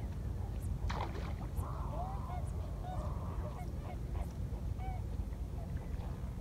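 Wind rumbling on the microphone, with a string of short bird calls starting about a second in and repeating for a few seconds.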